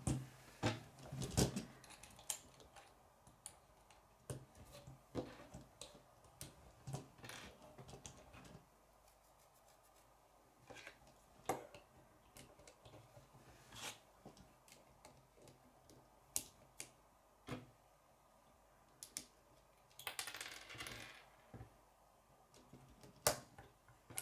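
Small plastic K'nex pieces clicking, snapping and knocking as the back wheels, axle and connectors are fitted onto the car, in irregular single clicks with pauses between them and a brief rustle about 20 seconds in.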